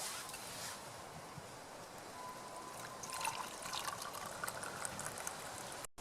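Liquid trickling, with a faint thin steady tone lasting about a second from about two seconds in and a few light clicks.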